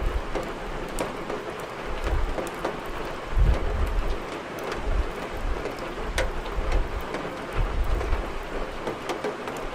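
Steady rain with sharp pops of a wood fire crackling in a fireplace every second or so. Short low rumbles come and go every second or two.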